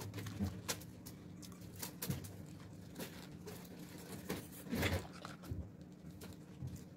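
Quiet eating sounds: chewing french fries, with scattered small clicks and rustles from handling a paper cup of fries, over a steady low hum.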